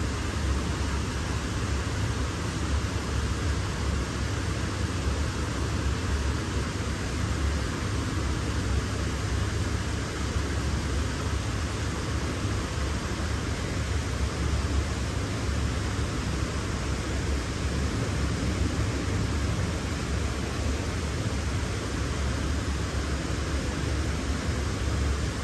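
Steady background hiss with a strong low hum: the ambient noise of an indoor aquarium exhibit.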